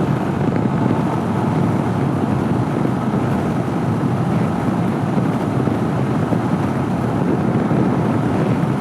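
Steady riding noise from a 2014 Honda CB500X at road speed: wind rush over the helmet microphone, with the bike's parallel-twin engine and road noise underneath.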